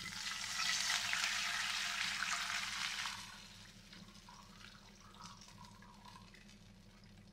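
Water poured into a pan of hot ghee, hissing and sizzling loudly for about three seconds, then dying down to a faint crackle.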